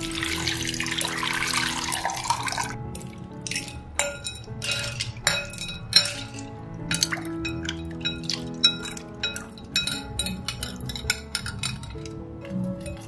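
Water pouring over ice cubes into a cut-glass bowl, a splashy hiss that stops about two and a half seconds in. It is followed by a run of light clinks and knocks of ice and a wire skimmer against the glass as potato cubes are lowered into the ice water. Soft background music plays throughout.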